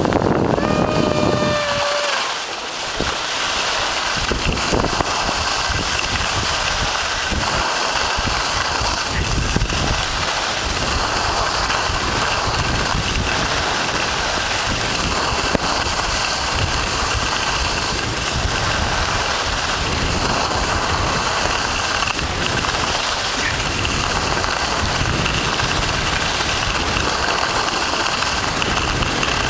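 Steady rushing noise of wind on the microphone and skis sliding over groomed snow while skiing downhill. A brief high pitched tone sounds about a second in.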